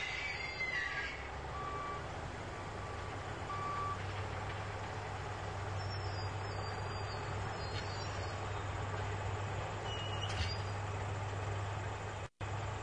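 Heavy equipment engine running steadily as a low drone, with a few short beeps of a backup alarm in the first few seconds. The sound drops out briefly near the end.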